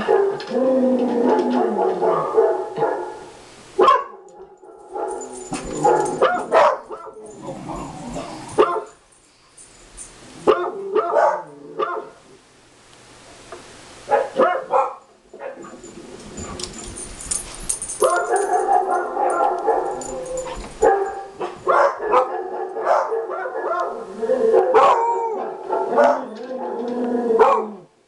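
Several dogs barking and yipping in bursts, with quieter gaps now and then: a recording of barking dogs playing from a speaker, with the household dogs barking back at it.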